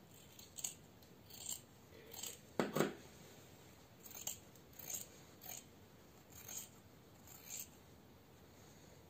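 Scissors snipping through layered fabric, trimming excess off a sewn seam: about ten short, separate snips at an uneven pace, the loudest nearly three seconds in.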